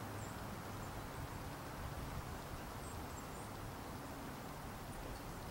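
Quiet outdoor ambience: a low steady rumble under an even hiss, with a few brief high bird chirps, once at the start and twice around three seconds in.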